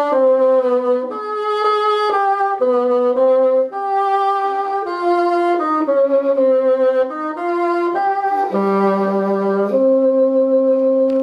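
1961 Fox Model II wooden bassoon played solo: a slow melody of separate held notes, one after another, with the last note held longer near the end.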